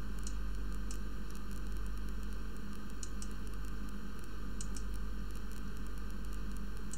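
Steady microphone hiss with a low mains hum, and a few faint clicks of a computer mouse.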